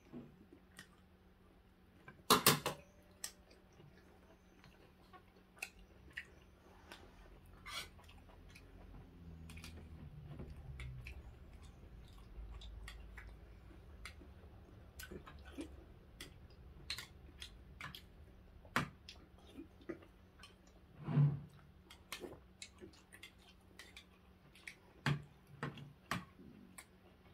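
Eating sounds: quiet chewing, with scattered light clicks of chopsticks and spoons against porcelain bowls. Two louder sharp sounds, about two seconds in and again near 21 seconds.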